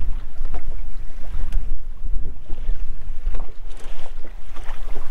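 Wind buffeting the microphone in a steady low rumble, with choppy lake water slapping against the boat's hull.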